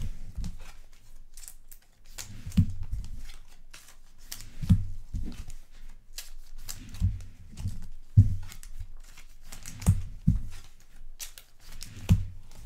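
Baseball trading cards and pack wrappers being handled on a table: irregular soft thumps, about one every second or two, as cards and stacks are set down, with rustling and crinkling in between.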